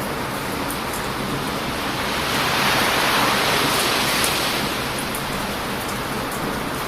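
Heavy ocean surf on a beach: a steady rushing wash, with one wave swelling up and breaking around the middle before easing off. Light crackles from a wood bonfire tick faintly over it.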